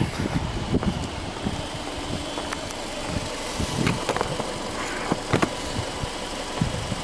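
Subaru Legacy 2.0R's 2.0-litre flat-four boxer engine idling steadily, with a few sharp clicks over it.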